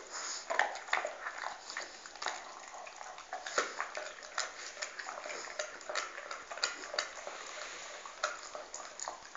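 Dog chewing and gnawing a bone: irregular crunching clicks and cracks, several a second, as its teeth work the bone.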